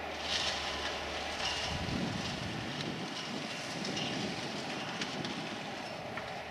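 Steam-hauled passenger train going away along the line behind 60163 Tornado: a steady rumble and rail noise from the coaches' wheels, with short bursts of clatter about once a second, slowly fading.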